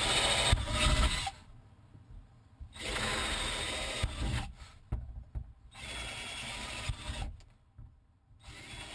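Power drill running in short bursts as it drills bolt holes through the kayak's plastic hull: three runs of a second or two each with pauses between, and a fourth starting at the end.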